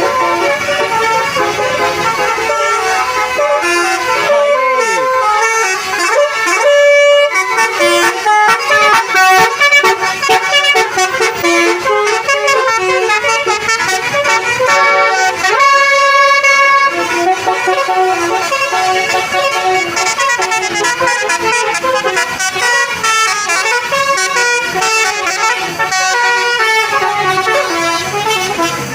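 Telolet bus horns, multi-trumpet musical air horns, playing rapid melodic runs of changing notes, several horns overlapping, with longer held chords about seven and sixteen seconds in.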